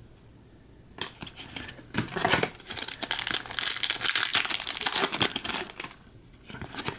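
Foil wrapper of a hockey trading-card pack being torn open and crinkled, starting about a second in and dying away about a second before the end.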